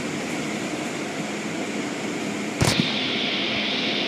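Automatic car wash heard from inside the car: water spray and cloth brushes swishing over the glass and body in a steady hiss. A little past halfway a brush strikes the car with a sharp knock, and the hiss then changes to a steadier, duller sound.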